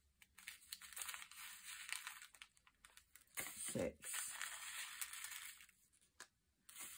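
Diamond painting drills, tiny resin beads, rustling and rattling as a scoop stirs them in a plastic sorting tray and they are poured into a small bottle, in two spells of soft granular hiss.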